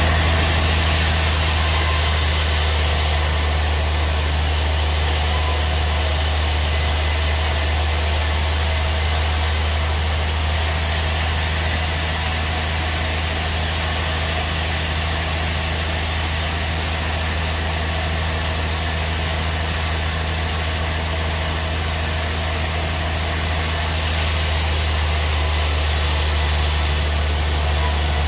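Band sawmill running: a steady low hum from its drive over an even hiss, easing slightly about ten seconds in and picking up again near the end.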